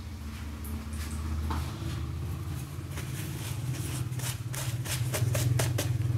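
Coated Scotch eggs frying in hot oil in a pan, with a quick run of sharp crackles in the second half, over a steady low hum.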